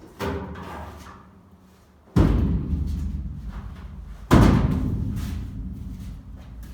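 Three heavy thumps about two seconds apart, each dying away slowly over a second or two.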